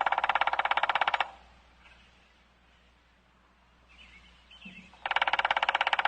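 Two loud, rapidly pulsing farm-animal calls, each about a second long, one at the start and another about five seconds in, with faint chirps in the quiet stretch between.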